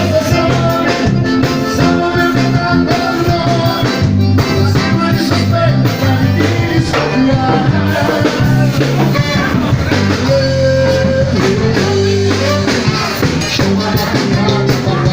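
Live band music played loud through a PA sound system: a steady beat with guitar and bass.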